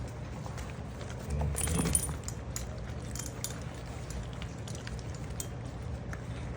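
Six-week-old puppies eating dry dog food: scattered small clicks and clinks, with a louder patch of clatter about one and a half seconds in, over a low steady hum.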